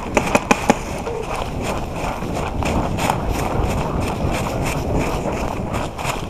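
Running footsteps crunching and rustling through dry fallen leaves, with the camera and gear jostling. A few sharp clicks come in quick succession in the first second.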